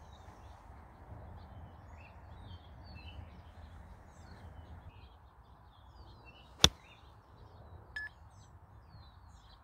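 A single sharp click as a 60-degree Callaway Jaws wedge strikes a Chrome Soft X golf ball on a full swing, about two-thirds of the way in. Faint bird chirps throughout.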